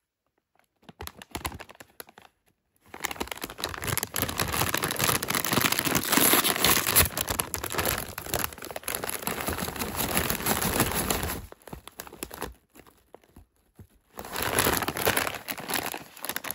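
Plastic potato-chip bag crinkling as it is handled and turned over. A long stretch of crinkling starts a few seconds in and stops about three-quarters of the way through, then a shorter burst comes near the end.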